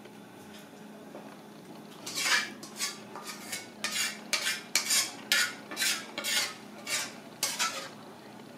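A ladle scraping chili sauce around a wok: about fifteen quick scrapes, starting about two seconds in and stopping near the end.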